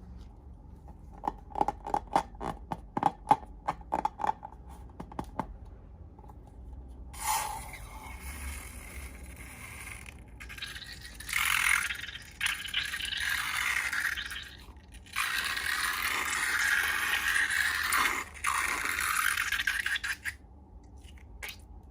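Slime-making handling sounds: a quick run of clicks for a few seconds, then long stretches of scraping with short breaks.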